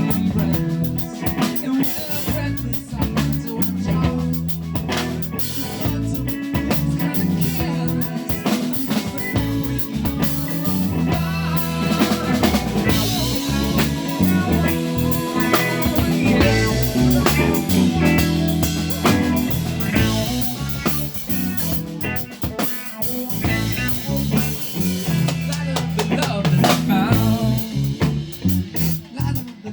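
A live band playing an instrumental passage with the drum kit to the fore: snare rimshots and bass drum over a low bass line.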